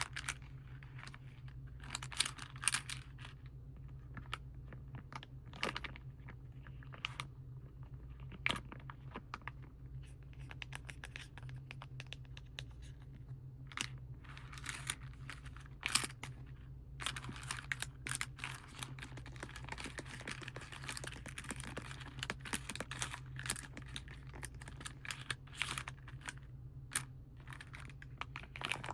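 Plastic and foil packaging crinkling and crackling, with many small irregular tapping and scratching clicks, denser in the second half, over a steady low hum.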